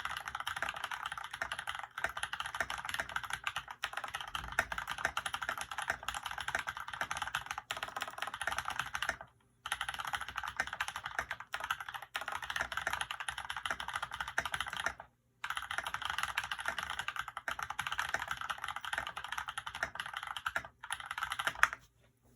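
Fast, continuous typing on a custom mechanical keyboard with tactile Holy Panda switches, a steel plate, a foam-dampened case and PBT keycaps: a dense stream of key clacks. It breaks off briefly about nine and fifteen seconds in, and stops just before the end.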